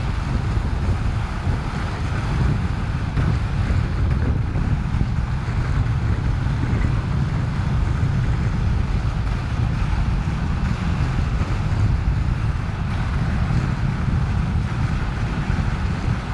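Wind buffeting an action camera's microphone as a steady low rumble, over a constant hiss of sliding across hard-packed snow.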